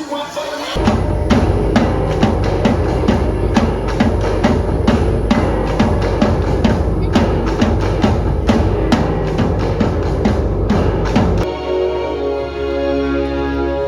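Background music with a steady drum-kit beat and deep bass, starting under a second in; near the end the drums drop out, leaving held notes.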